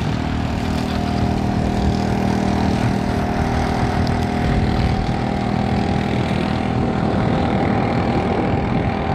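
Engine running steadily at one speed, a constant hum with no change in pitch.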